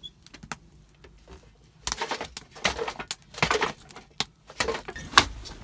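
Kindling being handled and laid in a stove to start a fire: irregular knocks, clatters and rustles of dry wood, busiest from about two seconds in.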